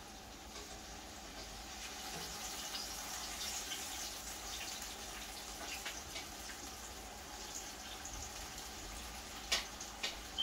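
Floured banga mary fish frying in hot oil in a pan, a steady sizzling hiss with small crackles. A couple of sharp clicks near the end.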